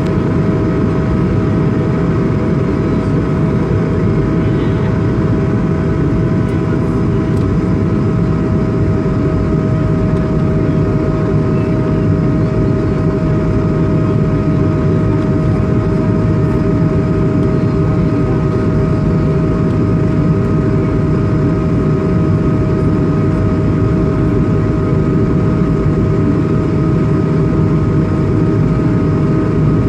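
Cabin noise inside an Airbus A220-300 in flight: its Pratt & Whitney PW1500G geared turbofans and the airflow make a constant low rumble, with a steady two-note hum held over it.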